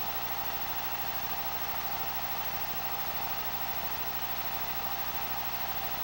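Film projector running: a steady mechanical whir and hiss over a low hum.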